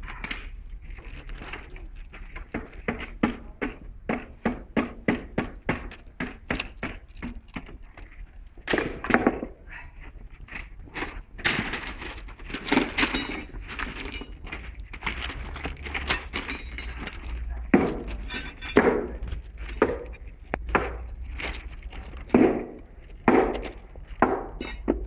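Metal striking metal during rail-welding track work: a run of quick, even clinks about two to three a second, then louder, irregular knocks and scrapes.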